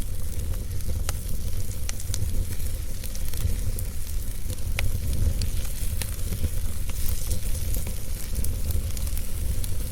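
Fire crackling: scattered sharp pops and snaps over a steady hiss and a low rumble.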